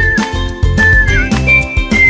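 Background music with a steady beat, a deep bass and a high, thin lead melody that slides in pitch.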